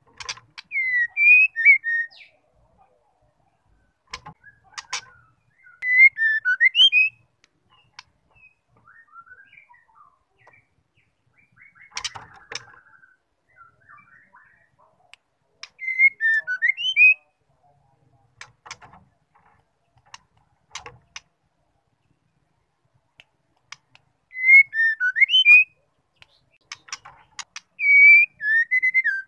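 White-rumped shama singing short whistled phrases, five of them a few seconds apart, with a few faint clicks in between. The uploader presents it as a female's song, meant to provoke male shamas into singing.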